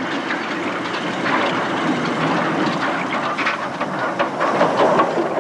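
A 1913 North British Locomotive Company saddle tank steam engine shunting wagons: steam hiss and exhaust with the clanks and knocks of the rolling stock. The knocks come thicker in the second half.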